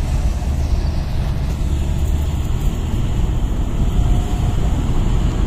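Diesel engine running steadily with a deep, even low drone, now on a replacement turbo with its injectors freshly balanced.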